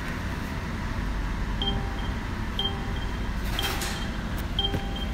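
Mercedes-Benz S550 warning chime repeating about once a second, four strikes starting about a second and a half in, over a low steady rumble. It is the car's warning that the driver's door is open while the car is in drive.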